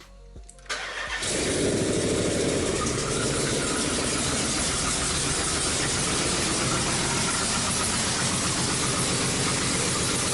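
Chrysler 300C's 5.7L Hemi V8 cranked briefly and catching about a second in, then running at a steady idle. This is its first start after a pinched gasket, which the owner takes for the cause of its vacuum leak, was refitted.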